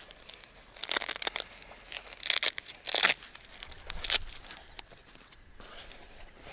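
Packaging of a new spinning reel being torn open and crinkled by hand, in about four short rustling bursts over the first four seconds.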